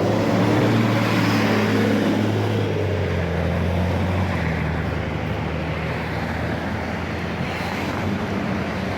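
Cummins ISL diesel engine of a 2005 New Flyer D40LF transit bus running under load, with a faint high turbocharger whine; the engine's pitch drops a couple of seconds in and then holds steady.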